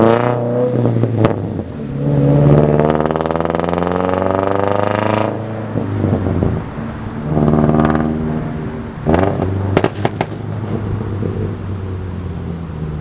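Subaru FB20 2.0-litre flat-four engine revving through its exhaust. The revs climb about two seconds in, hold, and fall away around five seconds, then rise again briefly around seven to eight seconds. A few sharp cracks come around nine to ten seconds, and the engine settles back to a lower, steady note.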